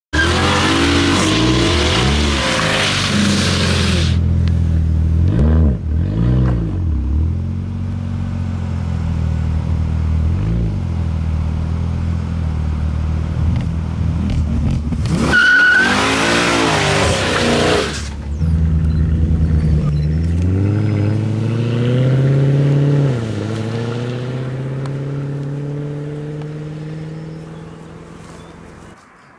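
Mercedes-Benz C63 AMG (W204) 6.2-litre V8 revving hard during burnouts: two loud bursts of spinning, squealing rear tyres, one at the start and one about halfway, with sharp rev blips between them. Near the end the car pulls away, its engine note climbing, dropping at a gear change and fading into the distance.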